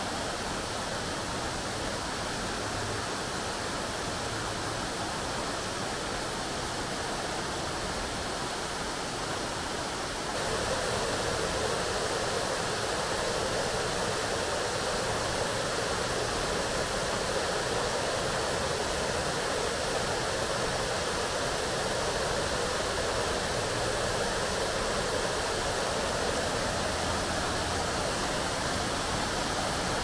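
Steady splashing rush of a water-feature fountain's falling water, stepping up suddenly louder about ten seconds in.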